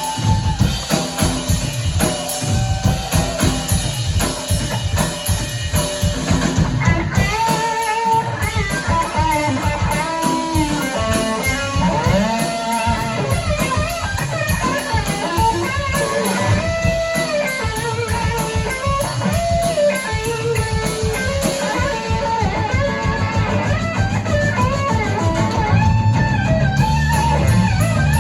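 Live blues-rock band playing loudly: drum kit and bass keep a steady beat while an electric guitar plays a lead line with bent and sliding notes, starting about a quarter of the way in.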